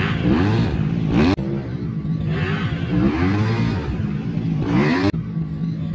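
Several 250 cc grasstrack racing motorcycles running on the track, their engines revving up and down in pitch over and over.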